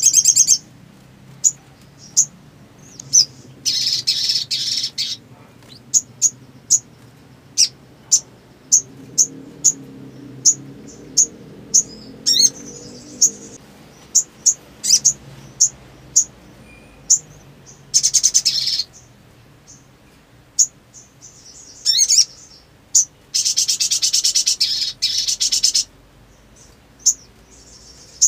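Sogon (sunbird) singing: a run of sharp, high single chirps, about one or two a second, broken by several rapid trilled bursts about a second long and a few quick falling notes. This is the lively sogon song played as therapy to get a silent caged sogon singing.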